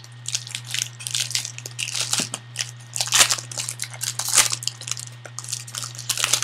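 A foil trading-card pack wrapper being torn open and crinkled by hand: irregular crackling rustles throughout, over a steady low hum.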